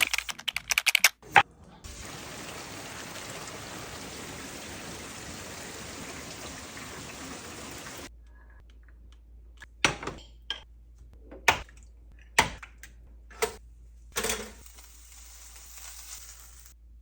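A quick run of clicks, then about six seconds of steady rushing noise, like rain or running water, that cuts off suddenly. Several separate knocks and clatters follow.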